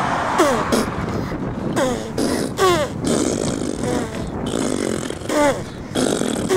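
Baby blowing raspberries and spluttering with spit, mixed with about half a dozen short squeals that each fall in pitch.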